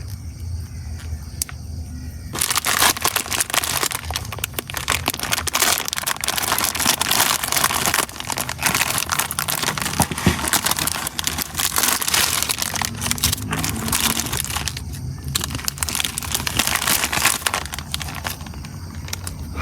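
Crinkling and crackling of plastic packaging being handled. It starts about two seconds in and goes on with a brief lull near the end.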